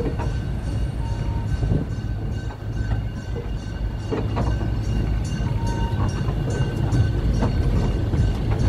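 Narrow-gauge railway carriage rolling slowly along the track with a steady low rumble, broken by a few separate clicks and knocks from the wheels over rail joints and points.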